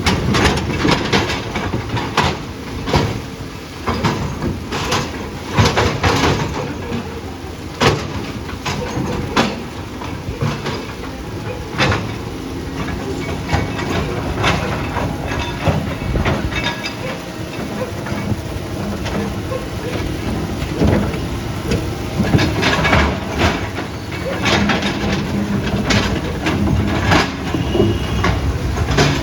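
Heavy earthmoving machine's engine running, with repeated metallic clanks and knocks from its tracks and working gear.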